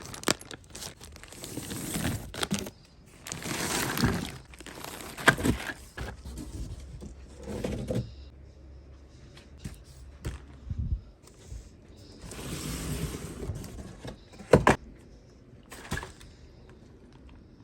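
A cardboard furniture box being opened and its packaging handled: several stretches of tearing and rustling cardboard and plastic wrap, with a few sharp knocks as parts are moved or set down.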